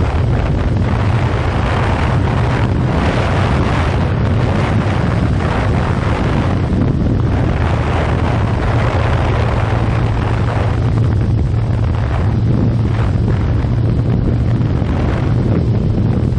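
Wind buffeting the microphone of a 2015 Yamaha FZ6R motorcycle being ridden at speed, with its inline-four engine running steadily underneath.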